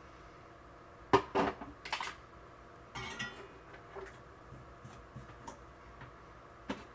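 Small hand tools and a plastic tub being set down and picked up on a wooden workbench: a quick run of sharp clicks and clatters about a second in, a rustle near the middle, then scattered light ticks and one last click near the end.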